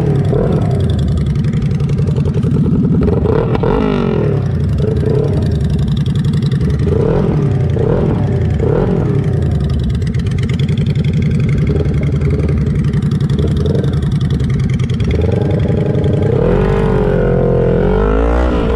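Motorcycle engines running at road speed, their pitch rising and falling as the throttle is worked and gears change. A longer rev climbs near the end.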